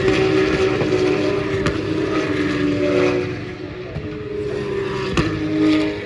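Racing cars passing at speed, several engine notes rising and falling in pitch as they go by, with two sharp pops. The sound eases after about three seconds and swells again as another car comes through near the end.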